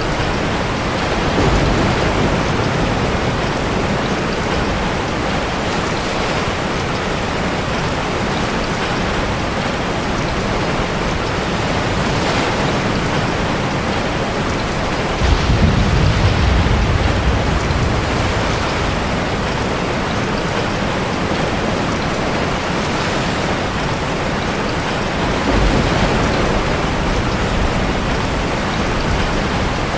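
Steady heavy rain with surf, heard as a dense continuous hiss. Deep low rumbles swell up a few times, the loudest starting suddenly about halfway through and lasting a few seconds.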